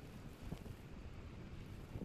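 Rain falling steadily on wet spinach leaves in a planter, with a low rumble underneath and a couple of louder drop hits, about half a second in and near the end.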